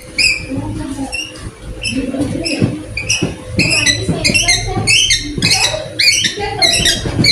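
High-pitched chirping: short chirps several times a second, getting busier from about three seconds in, over a low murmur of voices.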